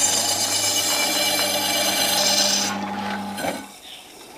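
Electric meat slicer running, its circular blade shaving slices off a frozen roll of fatty meat: a steady motor hum under a high rasping cutting noise. The rasp stops a little under three seconds in and the motor hum cuts off about half a second later.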